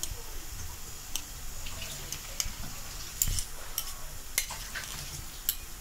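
Onions and garlic sizzling in a frying pan while being stirred, with a scatter of sharp clicks and scrapes of the utensil against the pan.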